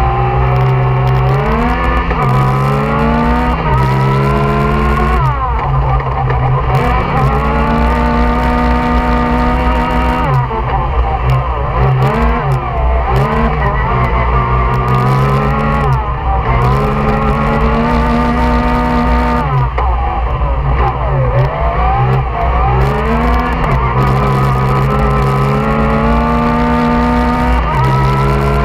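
On-board sound of a Yamaha YXZ1000R side-by-side's three-cylinder engine racing on dirt, revving up hard and dropping back again and again, with sharp falls in pitch every few seconds between pulls.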